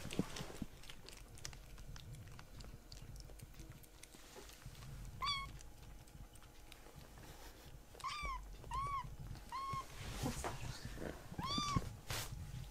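Kittens mewing, about five short high-pitched mews in the second half, each rising then falling in pitch, while begging for more of a lickable treat. Small clicks and handling rustles come in between.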